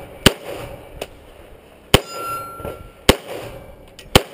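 Four pistol shots from a Beretta 92A1 9 mm, spaced a little over a second apart. A steel target rings briefly after the second shot.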